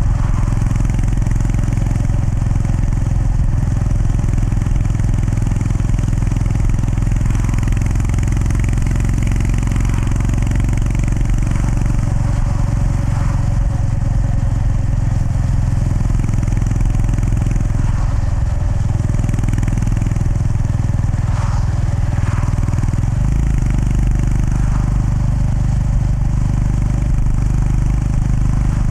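Honda GB350S air-cooled single-cylinder engine running steadily at a road cruise, heard from the rider's position. The engine note changes about 23 seconds in.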